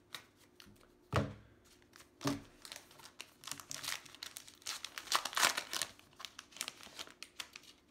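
A baseball card pack's wrapper being torn open and crinkled by hand, a quick run of crackles over several seconds, after two soft knocks near the start.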